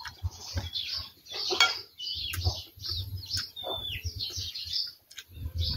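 Metal spoon clinking and scraping against a plate of rice during eating, a few sharp clicks. Birds chirp throughout, with one falling whistle near the middle.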